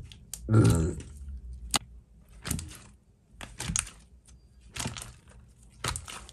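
Clear liquid-glue slime being pressed and stretched by hand: a string of sticky clicks and crackles as the thin sheets pull apart, with one fuller, louder burst about half a second in.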